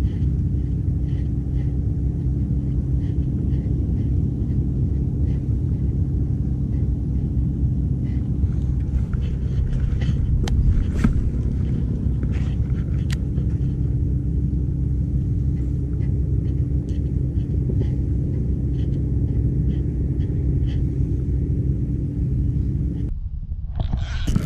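A steady low rumble carrying a constant low hum, with faint light ticks scattered through it. It drops out briefly near the end.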